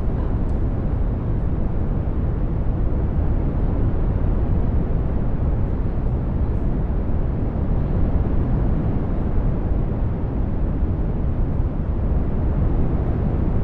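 Synthesized brown noise: a steady, deep hiss, heaviest in the low end and thinning toward the top.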